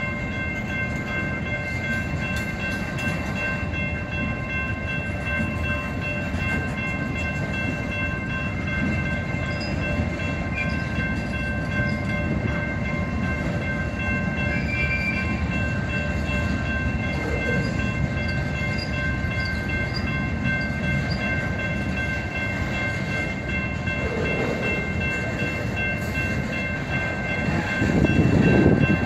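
Freight train crawling slowly past with a steady low rumble, and a set of steady high tones held over it throughout. The low rumble grows louder in the last couple of seconds.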